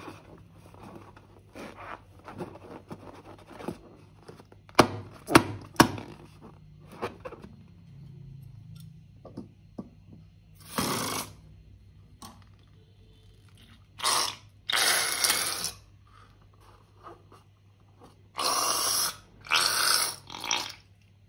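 A filled latex balloon being handled and cut open with scissors: scratchy rubbing and squeaking of the rubber, three sharp snaps about five seconds in, then several hissing spurts, each about a second long, as the contents are squeezed out.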